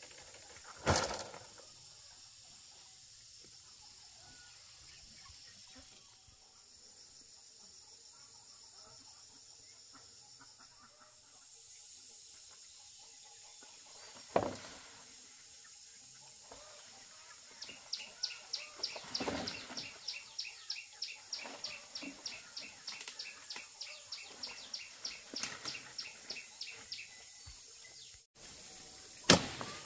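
A cut log and leafy branches being handled and dragged through vegetation, with a sharp knock about a second in and another about halfway through. Underneath is a steady high insect hum, and over the second half a run of short high chirps, about three a second.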